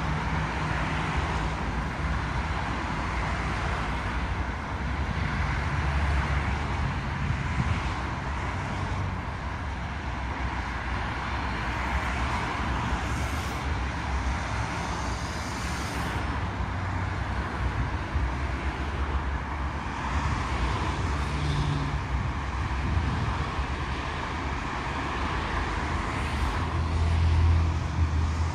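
Steady road traffic on a multi-lane street: a stream of cars passing below, with tyre and engine noise. An articulated city bus's engine rumble grows and is loudest near the end as it comes close.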